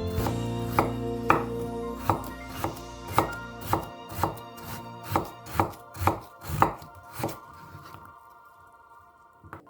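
Knife chopping food on a cutting board in steady strokes, about two a second, that stop about three-quarters of the way through, with soft background music underneath.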